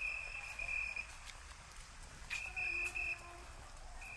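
Electronic beeper sounding a high, steady tone about a second long, repeating roughly every two seconds.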